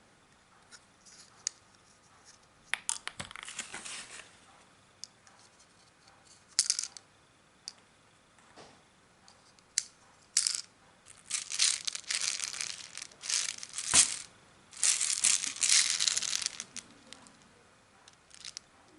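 Handling of a toy airsoft pistol: sharp plastic clicks and knocks, the loudest about fourteen seconds in, between stretches of crinkling and rustling.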